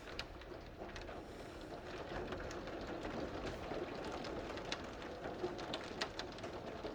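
Steady rain falling, with many sharp taps of drops striking nearby surfaces.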